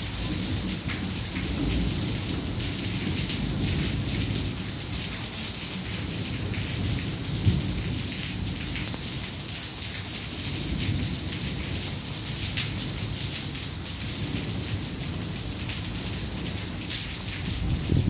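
Steady heavy rain hissing, with low rolling thunder rumbling and swelling underneath. A short, sharp crack stands out about halfway through.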